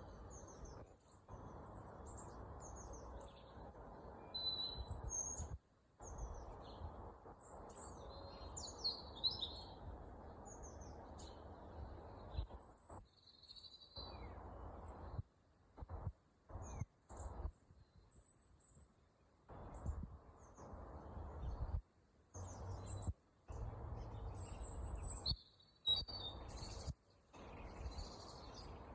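Several birds chirping and calling in short, high notes throughout. Underneath is a low background hiss that drops out abruptly many times.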